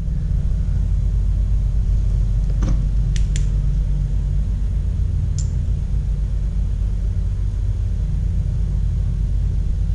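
A steady low rumble, with a few light clicks and taps about three and five seconds in.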